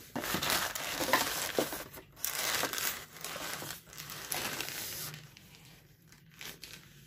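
Plastic wrapping bag crinkling and rustling as the wrapped doll is handled and turned over in its box, busy for about five seconds and then much quieter.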